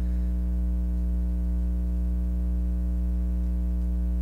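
Steady low electrical hum, like mains hum picked up by the recording, with a row of fainter, higher steady tones above it and no change throughout.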